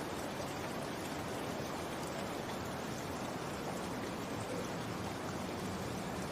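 Steady rain falling, an even hiss of rain with no breaks or distinct drops standing out.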